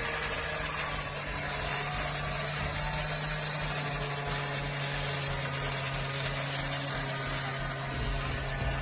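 Steady low mechanical hum at one constant pitch, like an engine idling.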